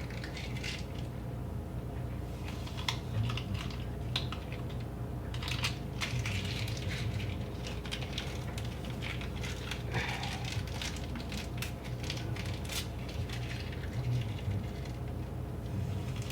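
Scattered small clicks and crackles, irregular and unevenly spaced, over a steady low hum.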